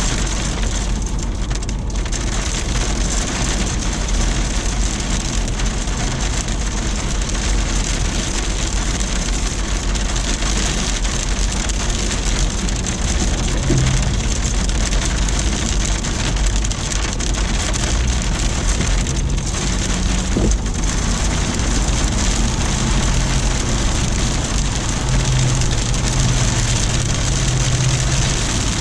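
Heavy rain and sleet falling steadily in a dense, loud hiss. A low hum runs underneath, swelling briefly around the middle and again near the end.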